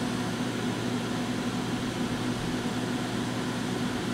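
Cooling fans of a homebuilt six-tube 3-500ZG linear amplifier running steadily, with a low, steady hum under the fan noise.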